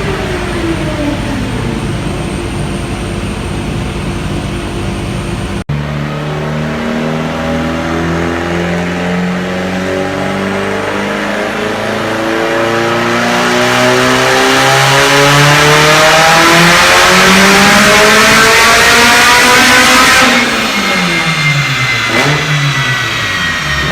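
Tuned high-performance car engine on a wide-open-throttle pull, revs climbing steadily and getting louder for about fifteen seconds. The throttle then shuts abruptly and the revs fall away. Before that, a short stretch of the engine with falling revs ends in a sudden cut.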